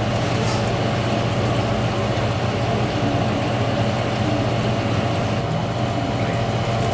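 A steady machine hum: a low drone with a few steady higher tones over a broad haze of noise, unchanging throughout.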